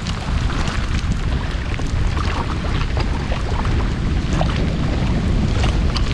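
Storm wind buffeting the microphone with a steady low rumble, and scattered sharp ticks of raindrops starting to fall.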